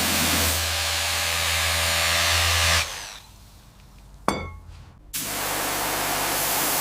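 A power tool runs with a low hum under a loud hiss and stops about three seconds in. A sharp click sounds in the roughly two-second pause, then the tool starts up again.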